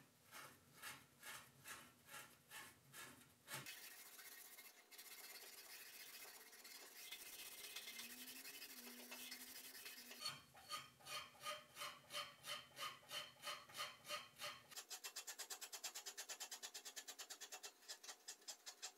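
A maroon abrasive pad scrubbed back and forth along the steel blade of a vernier caliper on a wet metal surface, faint. The strokes come about three a second at first, blur into a steadier rub in the middle, and turn to quicker, shorter strokes, about five a second, near the end.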